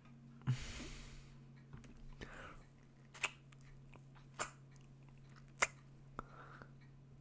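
Close-miked wet kissing sounds: a soft breath, then a run of lip smacks, three sharp ones about a second apart with smaller lip clicks between. A faint steady low hum lies under them.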